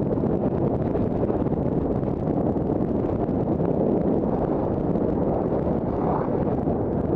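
Wind rushing over the camera's microphone while skiing downhill at speed, a loud steady roar, with the skis hissing over packed snow underneath it.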